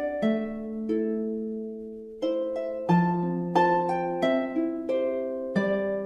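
Background music: a slow melody of plucked harp-like notes, each ringing and fading, with a brief lull about a second and a half in before the notes resume.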